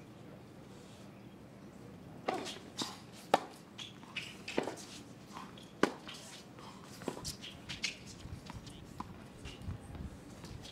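Tennis ball struck back and forth by racket strings in a rally: a sharp pock about every second and a quarter, with fainter ticks between the shots.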